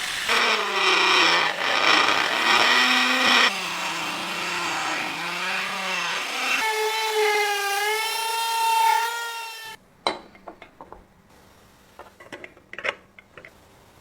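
A small handheld power tool working against material, its pitch sagging and recovering under load, then spinning freely with a steady whine for about three seconds before stopping abruptly. A few light clicks and taps follow near the end.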